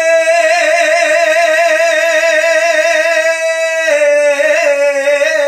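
Male kavishari singer holding one long sung note with an even vibrato, stepping slightly down in pitch about four seconds in.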